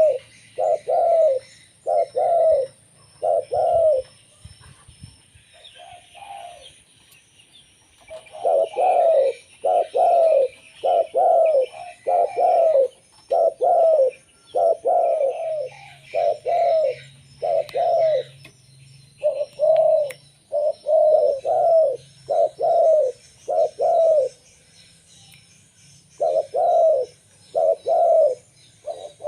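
Local perkutut (zebra dove) singing its rhythmic cooing song: a steady string of short coo notes, about one and a half a second, broken by two pauses of a few seconds.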